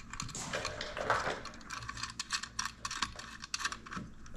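Small metal clinking and rattling as a chrome passing-light housing and its mounting hardware are handled and fitted together: a run of quick, irregular clicks.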